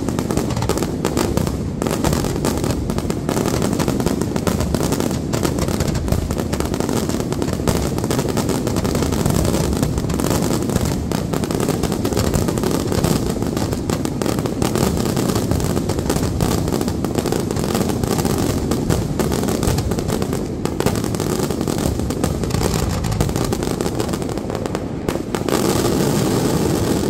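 Aerial firework shells bursting so densely that their bangs run together without a break, with crackle on top, getting a little louder near the end. This is the closing barrage of a fireworks display.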